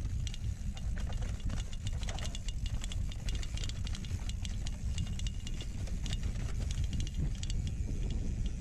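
Mountain bike ridden over dirt singletrack: tyres crunching over dirt and dry leaves while the chain and bike parts rattle in quick irregular clicks over the bumps, over a steady low rumble of wind on the camera microphone.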